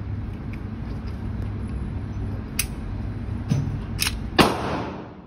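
Steady low mechanical hum inside an indoor shooting range, broken by a few sharp cracks. The loudest, a gunshot about four seconds in, rings off in a long echo. The hum drops away right at the end.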